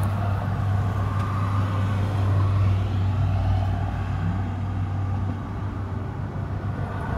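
A motor vehicle's engine running with a steady low hum, swelling a couple of seconds in and fading near the end.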